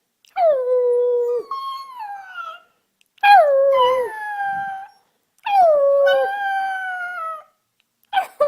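A puppy howling: three long howls, each starting high and sliding down in pitch, with a short fourth howl beginning near the end.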